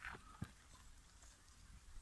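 Near silence, with a brief rustle at the start and one faint knock about half a second in.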